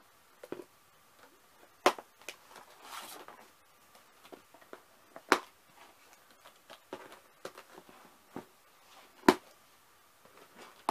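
A cardboard shipping box being handled and moved: sharp knocks, the three loudest about two, five and nine seconds in, with a short scraping rustle around three seconds in.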